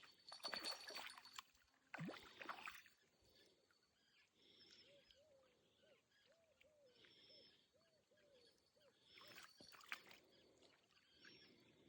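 Faint splashing of water in three short bursts, with a run of soft repeated chirps in the middle and a sharp click near the end.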